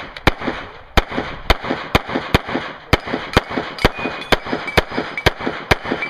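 Handgun fired rapidly in a timed action-pistol string: about a dozen sharp shots, roughly two a second, some louder than others.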